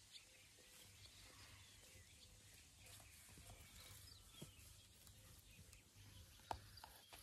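Near silence: faint outdoor ambience with distant birds chirping, and a few soft scuffs and clicks of hands pressing garden soil, the sharpest click about six and a half seconds in.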